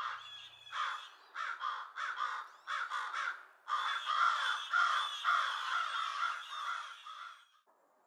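A group of crows cawing harshly, mobbing a great horned owl to drive it away. Separate caws at first, then from about halfway a dense run of overlapping caws that cuts off suddenly shortly before the end.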